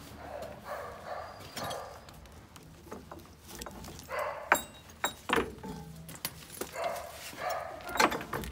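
A dog barking a few times, mixed with sharp clinks and knocks as horse tack and a bridle with metal rings are handled.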